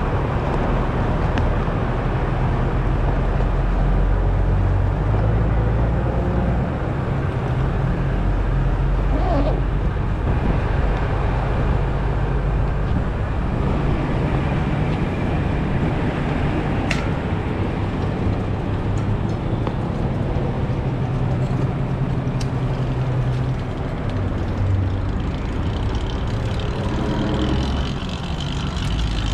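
Two-stroke motorized bicycle engine running steadily under way, its low steady drone holding through the ride, with a dense rush of noise over it.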